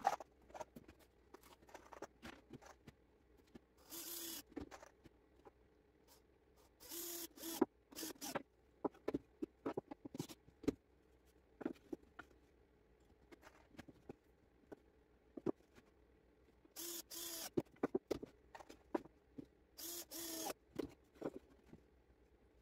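Cordless drill-driver running in short bursts of about half a second, about five times, driving screws into the timber frame of a crate. Between the bursts, scattered knocks and clatter of wooden pieces handled on the workbench.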